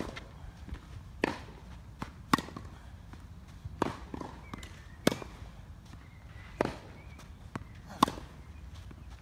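Tennis warm-up rally on a clay court: balls struck by racquets and bouncing on the clay, a sharp pop about every second and a half, some hits louder and nearer than others.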